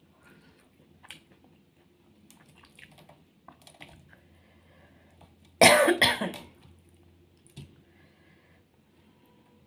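A woman coughing in one short burst of two or three coughs a little past halfway, loud and sudden. Before it there is quiet chewing with small clicks of food and fingers.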